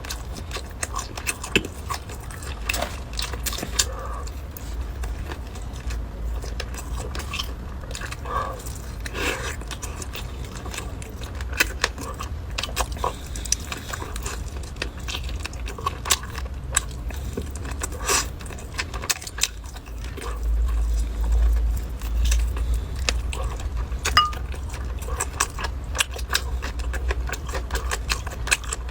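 Close-up eating sounds: biting into and chewing a chicken leg, heard as many short, irregular clicks. A low, steady hum runs underneath and swells briefly about two-thirds of the way through.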